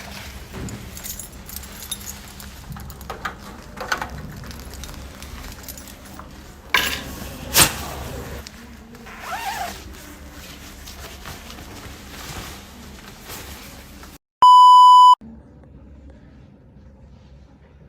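Scattered knocks and rustles of objects being handled, with two sharp impacts about seven seconds in, then a loud, steady electronic beep lasting under a second.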